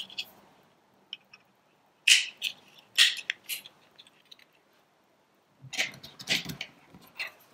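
AAA batteries being pressed into a small plastic sensor's battery compartment: clusters of sharp clicks and scrapes as the batteries meet the spring contacts and the casing is handled, about two seconds in and again near the end.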